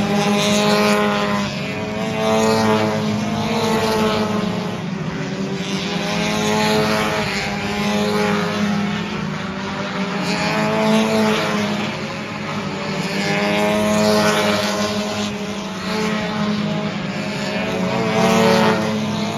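V6 stock car engines racing around an oval track, several cars at once. Their pitch and loudness swell and fall every couple of seconds as cars pass, over a steady drone from the rest of the field.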